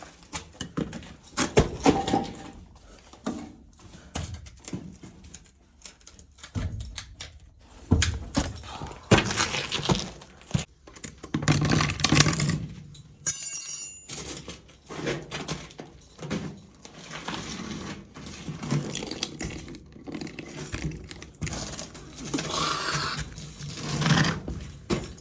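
Irregular knocks, thuds and scrapes of a person moving about and handling gear in a cramped crawl space, with a brief metallic jingle about halfway through.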